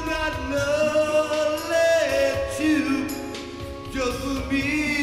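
A man singing into a handheld microphone over a recorded backing track, holding long notes that bend and slide in pitch.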